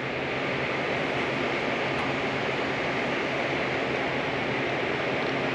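Steady, even hiss of ventilation air in a room, unchanging throughout.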